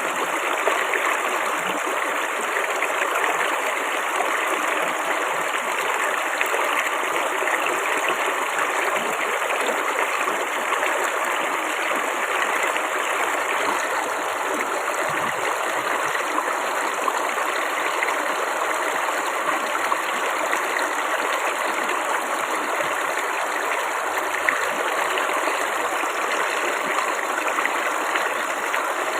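Flowing water babbling steadily, an even rushing splash with no pauses.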